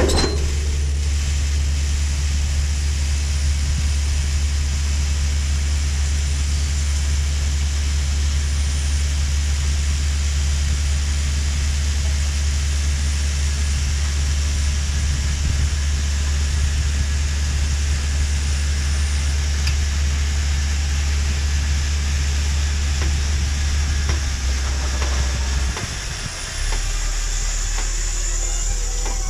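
Tractor-drawn air drill working through the field: a steady low machine drone with a constant hiss, heard from among the drill's openers. About 25 seconds in the drone dips and settles to a lower pitch.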